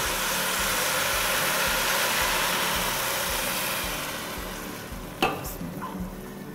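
Boiling water pouring from a kettle into a hot steel pot of rice and spices, hissing and sizzling as it hits while a spatula stirs. The hiss fades from about four seconds in, and there is a sharp clink a little after five seconds.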